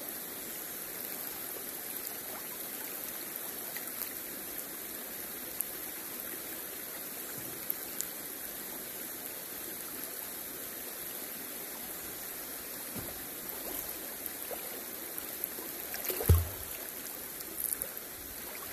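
Shallow river water running steadily over stones close to the microphone, with small clicks and trickles of water. A single low thump about three-quarters of the way through.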